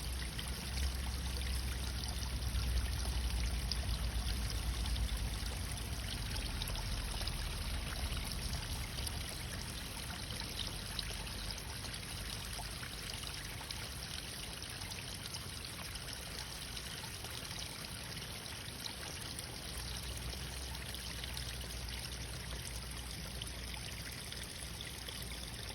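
Water flowing and trickling steadily, like a small stream, with a low rumble that swells in the first few seconds and again near the end.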